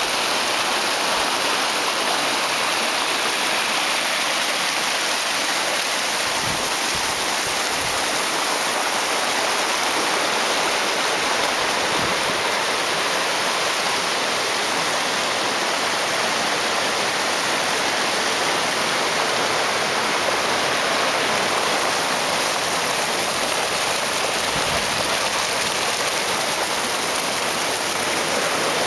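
Rushing water of a canyon stream running high after several days of rain: a steady, even rush that does not let up.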